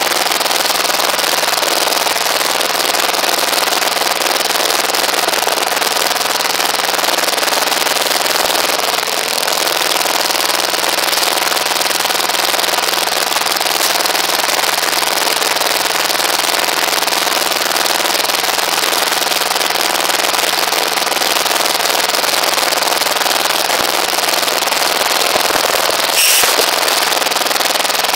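Rebar bending machine running with a steady, rapid mechanical clatter from its drive. A single sharp metallic clank comes near the end.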